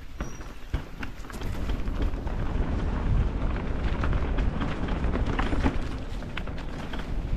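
Mountain bike riding down a rough dirt trail, heard from a GoPro on the rider: a low wind rumble on the microphone and tyres rolling over dirt and stones, with frequent knocks and rattles from the bike. It gets louder about a second in as the bike picks up speed.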